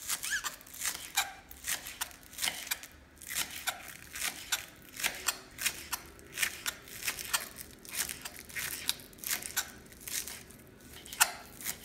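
Kitchen knife chopping spring onions into small pieces on a wooden cutting board: a steady run of crisp cuts, about two or three a second.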